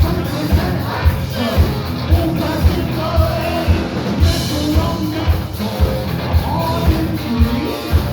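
Heavy metal band playing live: a sung vocal line over the band, with a steady kick-drum beat about twice a second.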